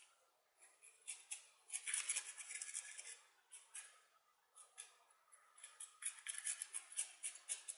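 A wooden stick poked and worked into gritty potting mix of culture soil and fine decomposed-granite grit, the grains crunching and scratching in quick crackly spells with a couple of short pauses. The stick is settling the mix down among the roots of a newly planted succulent.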